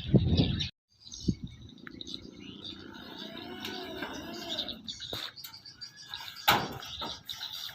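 Small birds chirping repeatedly in the background, with a heavy thump right at the start and a sharp knock about six and a half seconds in.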